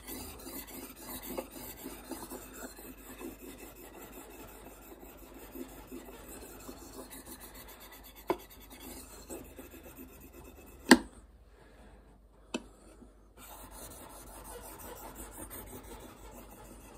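Steel knife blade (a Fallkniven F1, VG10) stroked back and forth over a wet 1000-grit whetstone dressed with a little polishing paste: a soft, continuous scraping rasp. A few sharp clicks break in, the loudest about eleven seconds in.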